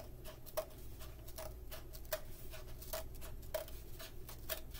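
Scissors snipping small bits off the end of a cardboard paper towel tube, short crisp snips about two a second. The tube is being cut shorter to raise its pitch as a boomwhacker.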